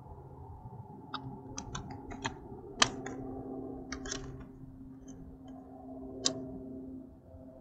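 Irregular sharp clicks and taps from gear being handled, probably while the angler deals with a freshly caught smallmouth bass. The loudest click comes about three seconds in and another near six seconds, over a steady low hum.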